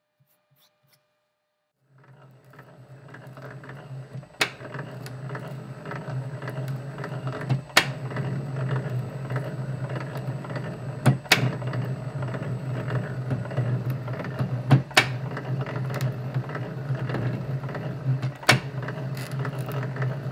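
Metal lathe turning a 1144 steel workpiece, the cutting tool taking a cut while the workpiece flexes under it. A steady hum with a dense mechanical rattle, broken by a sharp click about every three and a half seconds. It fades in about two seconds in.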